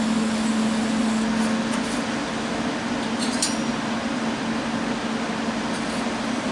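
A steady machine hum with an even whir over it, like a fan or motor running in the workshop, with one light metal click about three and a half seconds in.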